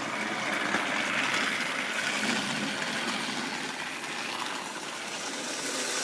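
Battery-powered Trackmaster toy train running on plastic track: a steady whir from its small electric motor and gears, with the wheels rattling along the rails.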